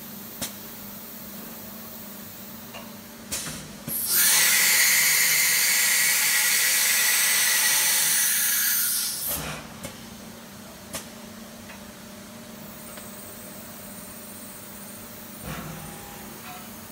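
CNC engraving machine's automatic tool changer swapping spindle tools: a few knocks as the spindle moves in, then a loud hiss of compressed air for about five seconds from the pneumatic tool release, followed by scattered clicks, over a steady low machine hum.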